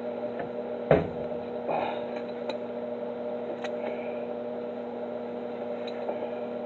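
Steady electrical hum of a stick-welding setup idling between welds, with one sharp knock about a second in.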